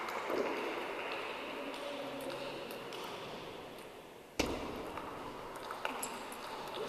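Table tennis ball clicking off bats and the table during play, over a steady hall hubbub. A single sharp knock, the loudest sound, comes about four and a half seconds in.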